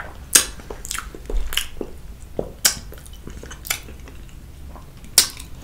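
Close-miked eating sounds: wet chewing with a string of sharp, irregular mouth smacks and clicks.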